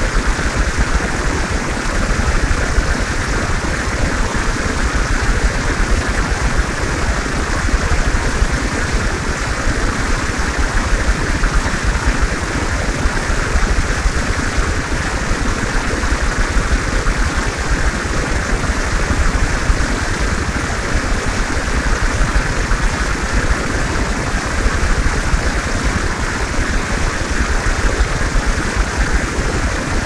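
Fountain water pouring from a concrete spout and splashing into a pool, a loud, steady rushing with no letup.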